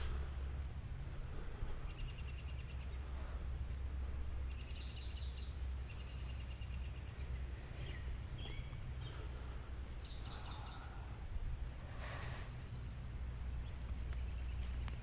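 Small birds singing in the background: several short trills of quick repeated high notes. Under them a steady low rumble on the microphone, with a brief rustle about twelve seconds in.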